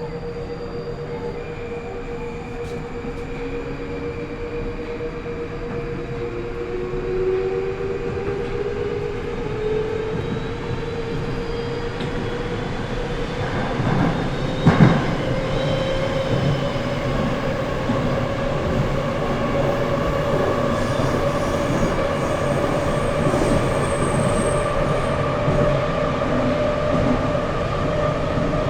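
Moscow metro train running, with the steady rumble and hiss of wheels on rail and the whine of its electric traction motors slowly rising in pitch as it gathers speed. A couple of sharp knocks about halfway through.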